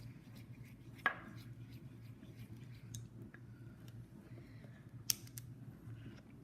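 A spork stirring clear glue and glitter in a container, with light scattered clicks and taps against the container. There are two sharper knocks, about a second in and about five seconds in.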